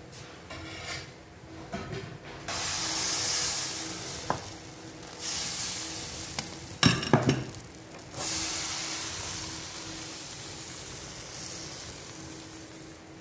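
Fermented rice appam batter sizzling as it is ladled into a hot appam pan. It comes in three bursts of hiss that each die away slowly, with a few sharp knocks of the ladle on the pan about seven seconds in.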